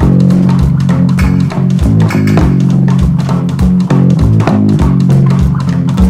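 Instrumental background music: guitar and bass over a steady beat.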